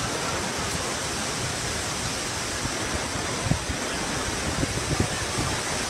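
Strong storm wind and heavy wind-driven rain making a steady, even rush, with gusts buffeting the microphone now and then.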